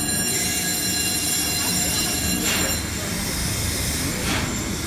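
The Hohentwiel paddle steamer's diagonal compound steam engine running, with a steady low rumble and a puff of steam hiss about every two seconds. For the first few seconds a high whistling squeal sounds over it, then cuts off suddenly.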